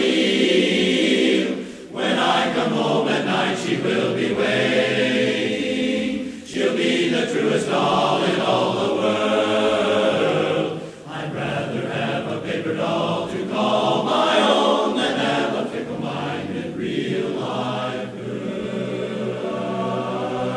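Male barbershop chorus singing a cappella in close harmony, in phrases with short breaks about two, six and a half and eleven seconds in.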